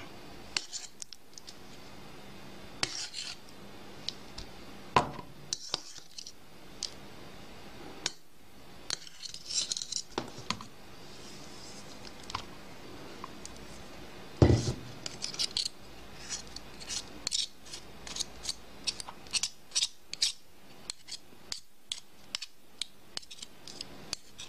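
Metal spoon scraping butter out of a steel bowl and into bread dough in a plastic mixing bowl: scattered short scrapes and clicks, with one louder knock about halfway through.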